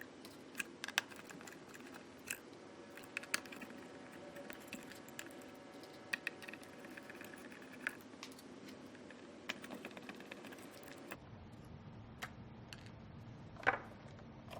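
Faint, irregular clicks and light metallic clinks of a screwdriver and small screws and washers as screws are taken out of a ventilator's front panel board.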